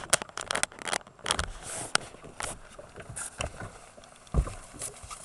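Irregular clicks, knocks and rustling close to the microphone as a person moves about the deck of a boat next to the camera, with a heavier thump about four seconds in.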